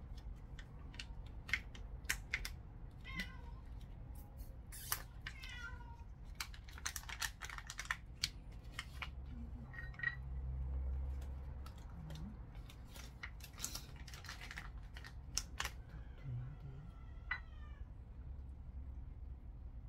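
A cat meowing about three times, short calls that bend in pitch, among many sharp clicks and smacks while it is hand-fed and eats from a bowl.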